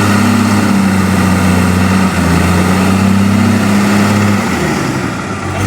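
Heavy diesel engine of earthmoving equipment running steadily under load, its note shifting slightly about two seconds in and easing off near the end.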